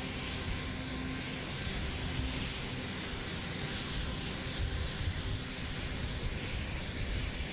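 Presidential helicopter's turbine engines running steadily on the ground: a continuous roar with a thin high whine over it.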